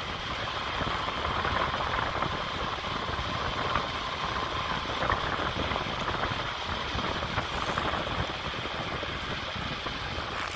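Steady rumble and rattle of a bicycle rolling fast down a steep asphalt descent, heard through a handheld phone shaken by the road.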